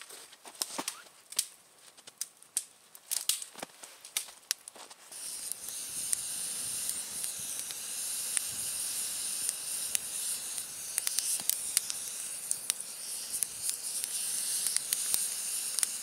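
Small wood fire burning under a hanging cast-iron Dutch oven: sharp crackles and pops for about five seconds, then a steady high hiss sets in with crackling on top.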